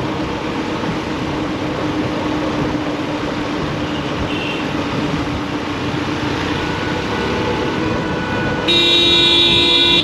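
Road traffic noise, then a vehicle horn honking loudly for about a second and a half near the end.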